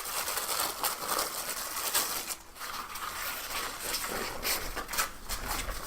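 Rustling and crinkling of a carrying bag being opened and handled, with irregular small scrapes and clicks.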